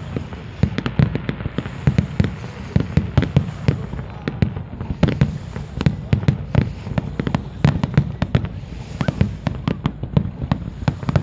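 Aerial firework shells bursting in quick succession: a steady run of booms and sharp cracks, several a second, with no pause.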